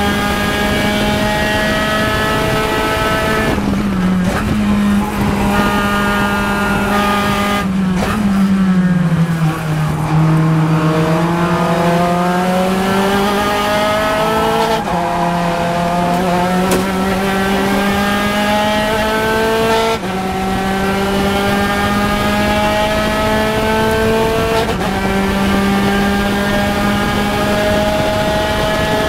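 Onboard sound of a Spec Racer Ford Gen3's Ford four-cylinder engine at racing revs, held near 6,000 rpm. A brief lift comes about four seconds in. The pitch falls under braking and downshifts around eight to ten seconds, then climbs out of the corner with upshifts at about fifteen, twenty and twenty-five seconds.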